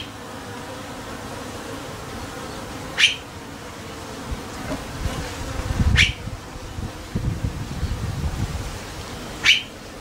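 Honeybees buzzing steadily in an observation hive as its perspex panel is taken off, with low handling and scraping noise from about five to nine seconds in. Three brief high-pitched sounds, each a quick falling sweep, come about three seconds apart.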